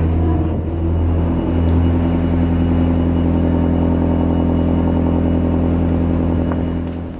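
Vehicle engine idling steadily, a low hum at a fixed pitch, fading out near the end.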